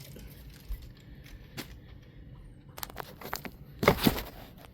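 Scattered handling noises as model aircraft parts and packaging are moved about: light clicks and taps, with a louder knock and rustle about four seconds in.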